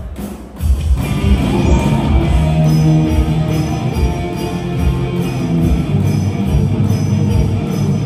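Live band playing a song on drum kit, bass and electric guitar, with a steady kick-drum beat and cymbals. After a short drop, the full band comes back in about a second in.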